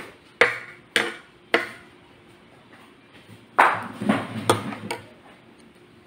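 Dishes and utensils clinking and knocking on a table: three sharp, evenly spaced clinks, then a quick cluster of four or five more about halfway through.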